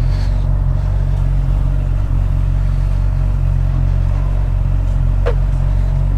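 Motorcycle engine running steadily while riding, under a heavy low rumble. A short rising chirp comes about five seconds in.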